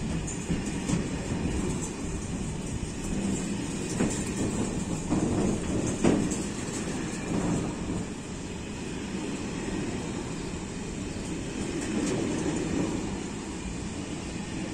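Freight train wagons rolling past close by, a steady rumble and clatter of wheels on the rails with scattered sharp knocks, the loudest about six seconds in. It grows a little fainter near the end as the tail of the train nears.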